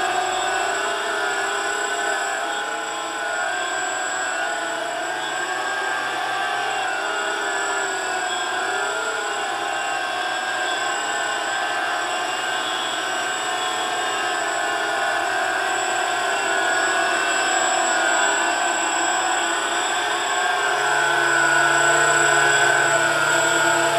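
RC tricopter's electric motors and propellers whining in a hover, with the pitch wavering up and down as the throttle is corrected. Louder near the end as it comes closer.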